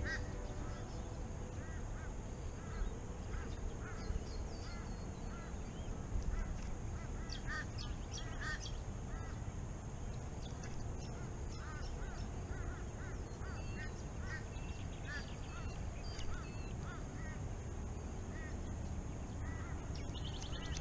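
Birds calling with many short, scattered chirps and squawks, over a steady low rumble of wind on the microphone and a steady high hiss.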